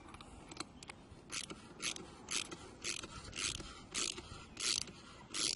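Anchor bolt being worked loose from a drill-guide tripod plate with a hand tool: a run of short rasping, ratchet-like strokes about two a second, starting a little over a second in.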